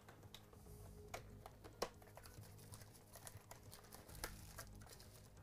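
Faint handling of a cardboard trading-card box as it is opened: scattered light clicks and taps, with a few sharper ones in the middle and near the end.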